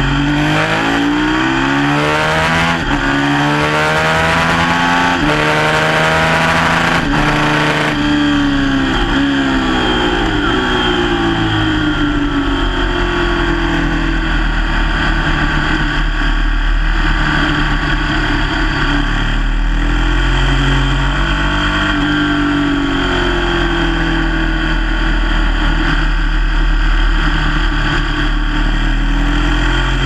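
Sport motorcycle engine at high revs on a track lap: its pitch climbs and drops again and again through the opening seconds as the rider shifts gears, holds fairly steady in the middle, then falls and rises once more later on.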